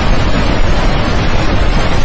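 Floodwater of a swollen mountain river rushing, a loud, steady rushing noise with no breaks.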